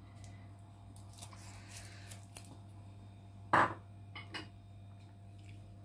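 Quiet handling of kitchen utensils, with one short clatter about three and a half seconds in, over a low steady hum.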